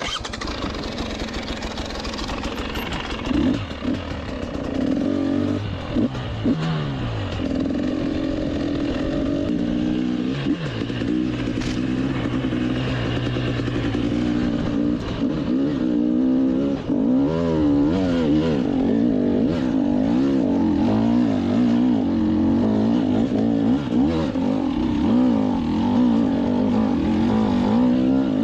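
GasGas EC 300 two-stroke enduro engine, heard from on board, revving up and down as the bike climbs a rough trail, with a few short knocks from the rocky ground.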